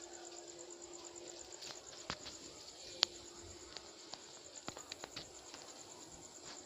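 Guinea pigs eating: scattered crisp crunching and rustling clicks, the sharpest about three seconds in.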